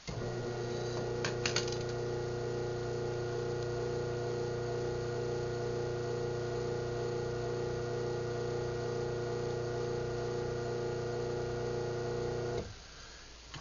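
Craftsman half-horsepower chain-drive garage door opener running steadily as it closes the door, with a few clicks shortly after it starts; the motor hum cuts off abruptly near the end when the door reaches its closed limit.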